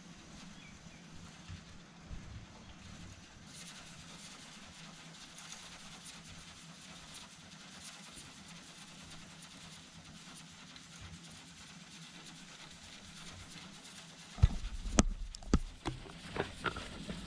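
Faint steady hiss from a drink-can Hero's steam engine spinning over a gas-stove burner, turning brighter and higher about three and a half seconds in. Near the end comes a run of loud, irregular knocks and clatters.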